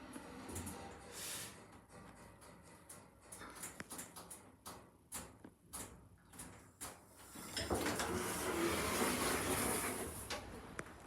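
Passenger lift's sliding doors running for about three seconds near the end, a steady rush of noise, after a string of light clicks.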